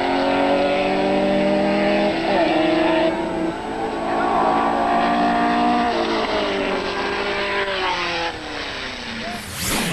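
Four-cylinder drag-racing cars, a VW Beetle and a rival sedan, accelerating hard down the strip at full throttle. The engine note climbs and drops back at each gear change, then fades as the cars pull away.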